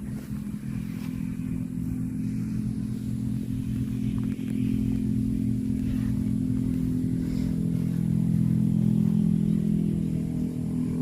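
An engine running steadily, its level rising slightly about eight seconds in.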